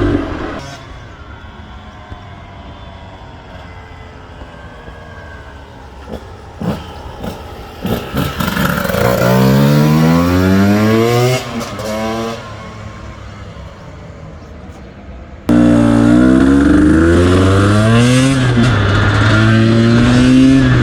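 Husqvarna TE150i two-stroke dirt bike engine being ridden hard, revving up again and again, its pitch climbing and dropping back several times in a row. It is quieter at first with a few sharp knocks, then gets suddenly louder about three quarters in.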